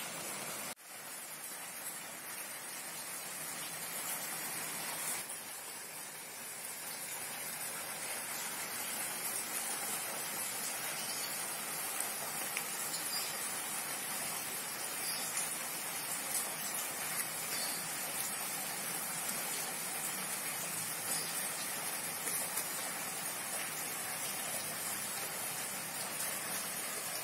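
Plastic cling film crinkling and rustling as a sandwich is wrapped tightly and pressed by hand, a soft continuous crackle with small ticks.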